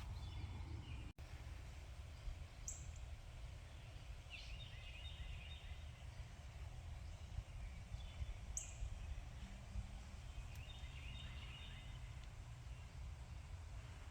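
Outdoor birdsong: short chirping call phrases from small birds, heard four or five times, with two quick high chirps, over a steady low rumble of background noise.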